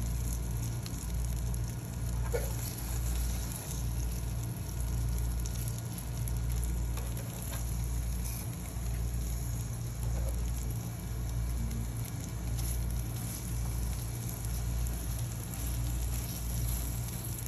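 Hamburger patties sizzling on an electric indoor grill, a steady crackling fry with small pops, over a low pulsing hum.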